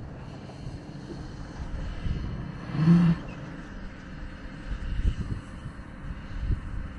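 A vehicle engine running low and steady, with wind noise, as the boat is backed down the launch ramp on its trailer; a short low hum-like tone sounds once about three seconds in.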